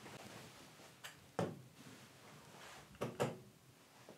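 A few faint, sharp clicks or taps, in two pairs about a second in and about three seconds in.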